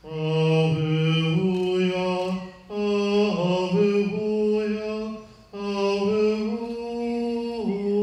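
Orthodox priest chanting a liturgical melody in long, slowly held notes, in three phrases with short breaks between them.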